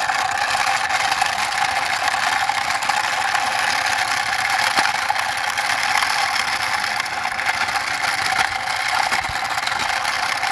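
Toy helicopter pushed by hand along a rough concrete wall, its wheels and geared rotor mechanism making a steady rattling whir.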